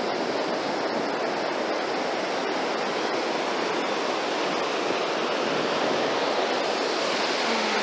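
Steady, unbroken outdoor rushing noise, even in level throughout, like surf or wind.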